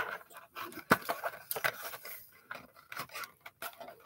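Plastic blister packaging of a Hot Wheels toy car being cut open: a string of small clicks, crackles and scrapes, with one sharper snap about a second in.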